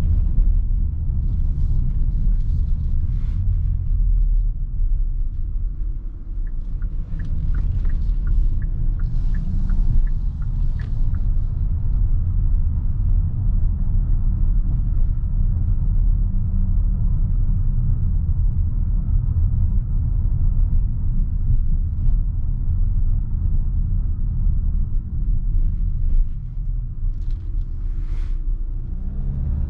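Kia Sorento with the 2.2 CRDi diesel under way: a steady low rumble of engine and road noise. For a few seconds, about a quarter of the way in, a light regular ticking runs at about two ticks a second.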